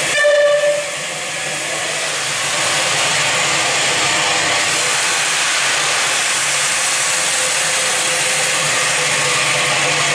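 Whistle of the Bulleid West Country class steam locomotive 34092 City of Wells, ending with a short blast in the first second. It is followed by a loud, steady hiss of escaping steam from the locomotive that swells a couple of seconds in and then holds.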